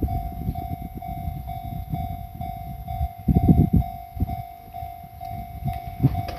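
Japanese level-crossing warning bell ringing evenly at about two strikes a second while a Fuji Kyuko train rolls over the crossing, its wheels rumbling and clattering, loudest about three and a half seconds in.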